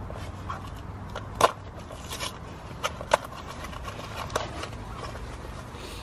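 A few sharp clicks and light rustling as small parts, a screw and a plastic mount, are picked up and handled, over a low steady hum. The loudest click comes about a second and a half in, with scattered smaller ones after.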